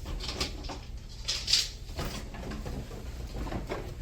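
Light handling noises of sculpture parts: a few soft clicks and taps, with a short scraping rustle about a second and a half in.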